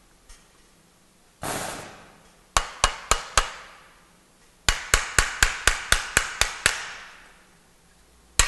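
Hand-held screwdriver handle knocking repeatedly on the plastic-and-metal body of a DeWalt palm sander to knock a stuck part free. A short burst of noise, then four sharp knocks, then a quick run of about ten knocks, roughly five a second, and more starting near the end.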